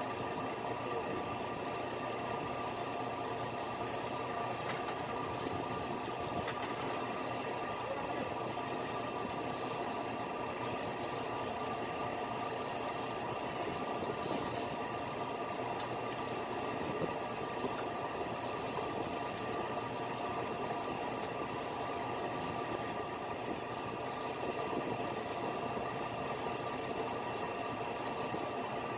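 Fishing boat's engine running steadily, an even drone with a constant pitch.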